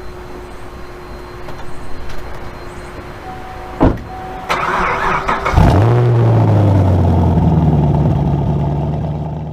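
Chevrolet Camaro engine being started: a click, a brief crank on the starter, then the engine catches with a quick flare of revs and settles into a steady idle.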